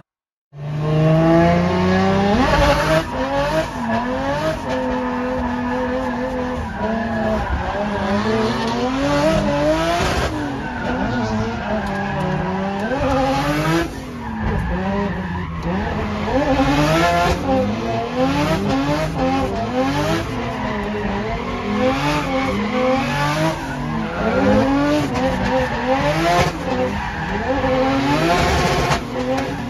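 Nissan C35 Laurel's turbocharged RB25DET straight-six, heard from inside the cabin, revving up and down again and again through a drift run, with tires squealing and skidding. It starts after a brief moment of silence.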